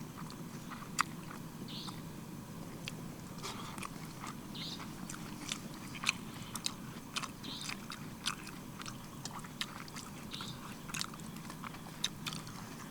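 A person eating rajma and rice close to the microphone: chewing, with scattered small clicks and crackles throughout.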